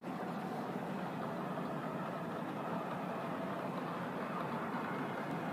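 HO scale model train running along the track: a steady whir from the locomotive's small electric motor and wheels.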